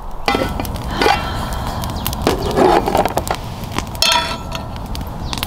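Irregular clicks, knocks and clatter of camping cookware and plastic food containers being handled, with a few short rustles, over a low rumble.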